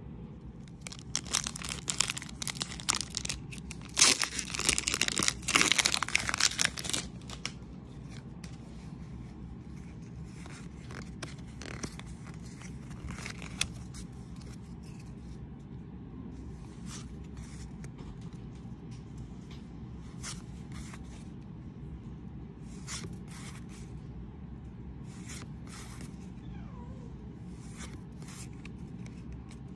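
Foil wrapper of a Pokémon card booster pack crinkling and tearing, with loud dense crackling over the first several seconds. After that come softer scattered rustles and card slides as the cards are handled.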